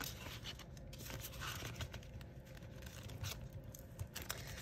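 Clear plastic binder envelopes and paper banknotes rustling and crinkling as cash-budget binder pages are turned and handled, with a few light clicks.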